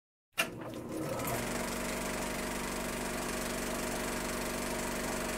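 Film projector running: a click as it starts just after the opening, then a steady mechanical whir with a fast, even clatter.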